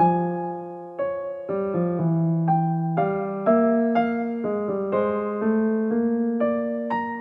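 Background music: a gentle keyboard melody on an electric-piano sound, a new note or chord struck about every half second and fading before the next.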